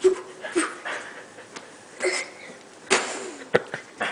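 A child's feet stamping and thumping on a hard floor, about six irregular stomps.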